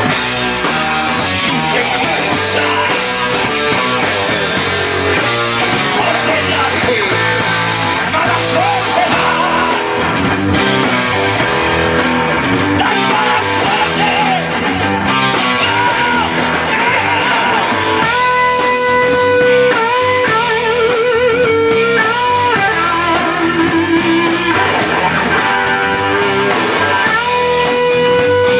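Hard rock band playing, led by electric guitar over bass and drums. About two-thirds of the way in, a lead guitar takes over with long held, wavering notes.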